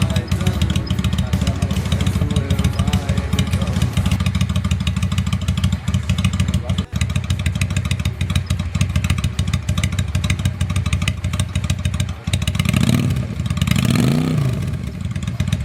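Honda Shadow VT600C's 583 cc V-twin engine idling with a steady, uneven beat. About 13 seconds in, the throttle is blipped once, and the engine rises briefly in pitch before settling back to idle.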